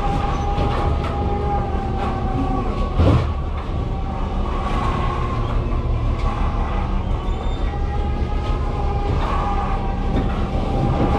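A fishing vessel's engine and deck machinery running: a steady low rumble with a constant whine over it, and one loud clank about three seconds in.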